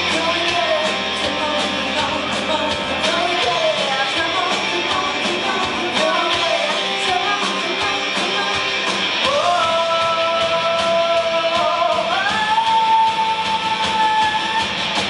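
Live hard-rock band playing: a woman sings lead over electric guitars, bass guitar and drums. Two long held notes come in the second half.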